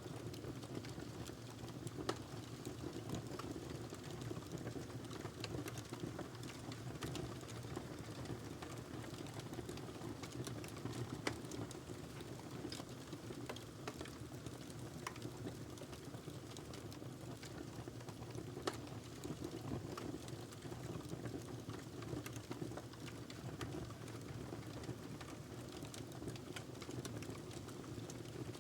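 Wood fire crackling in a fireplace: a steady low rumble of flames with frequent irregular sharp pops and snaps, a few of them louder.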